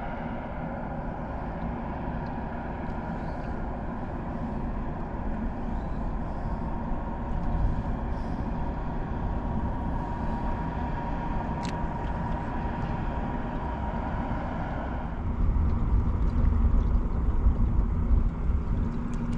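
A boat motor running steadily with a faint steady whine, mixed with wind and water noise. About 15 s in, a louder low rumble takes over.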